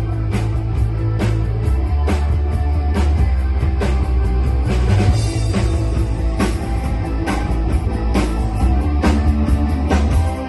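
Rock band playing an instrumental passage with no singing: a drum kit keeps a steady beat, about two hits a second, over a heavy bass line and guitar.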